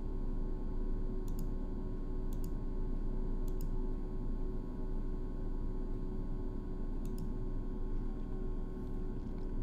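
Computer mouse clicking about four times, each a quick press-and-release, over a steady electrical hum.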